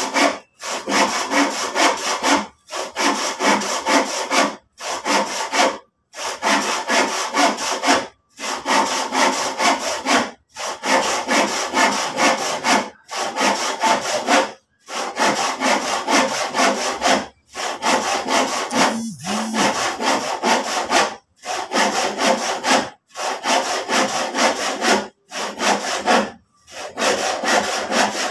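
Handsaw cutting through a piece of old lumber in a run of back-and-forth strokes. The strokes come in spells of a couple of seconds, each broken by a brief pause.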